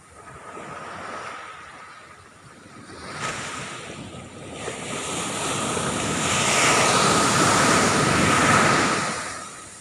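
Ocean surf breaking on a beach: a small surge about a second in, then a bigger wave rushing in from about three seconds, loudest in the second half and fading away near the end.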